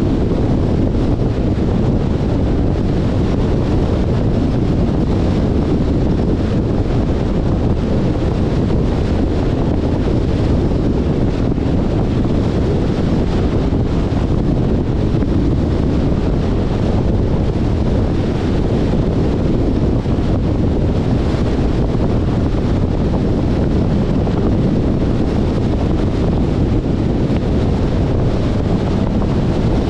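Steady wind noise on the microphone and low road rumble from a 2021 Jeep Compass driving, unchanging throughout.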